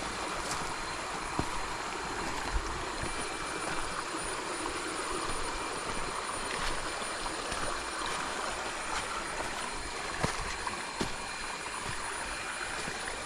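Steady rush of flowing creek water, with a few faint clicks and a thin, steady high tone above it.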